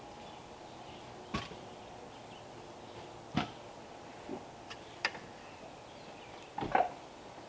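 A few sharp knocks and taps from a level and hand tools being handled against a wooden post, spaced about one and a half to two seconds apart, the loudest a quick double knock near the end.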